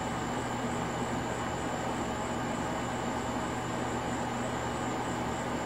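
Steady background hum and hiss with a thin high-pitched tone on top, unchanging throughout, with no distinct clicks or knocks.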